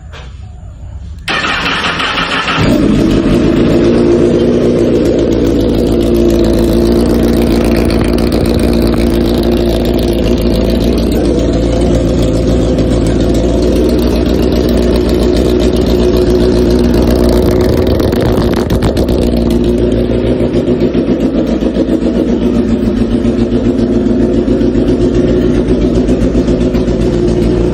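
Honda CBR1000RR's inline-four engine on a cold start: the starter cranks for about a second, then the engine catches and runs at a steady idle.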